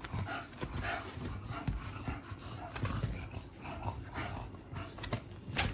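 American Bully dogs panting and snuffling up close, in short irregular breaths, with shuffling on the bed.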